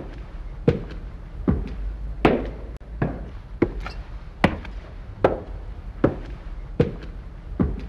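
Footsteps of hard-soled shoes climbing stairs, a sharp knock at each step, about one step every three quarters of a second, over a low steady hum.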